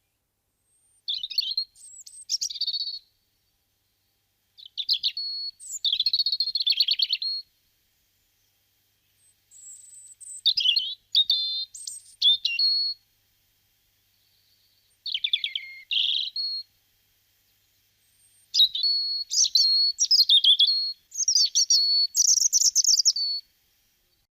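European robin singing: about six short, high, varied warbling phrases, each a second or two long, separated by pauses of about one to two seconds.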